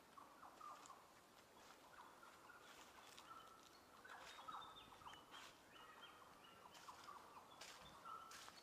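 Faint bird calls: many short whistled notes, some stepping up and down in pitch, with a few scattered clicks.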